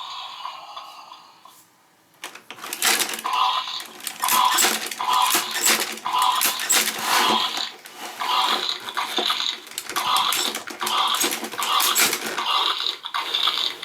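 Battery-powered Imaginext Eagle Talon Dragon toy set going: its plastic motor-and-gear mechanism runs with a rhythmic clicking and clattering, about two pulses a second, starting about two seconds in.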